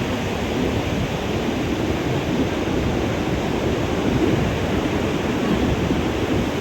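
Ocean surf washing on a sandy beach, a steady rush, with wind rumbling on the microphone.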